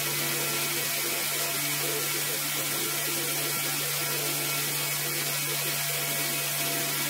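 A rug-cleaning machine's motor running steadily, a constant low hum under a strong hiss.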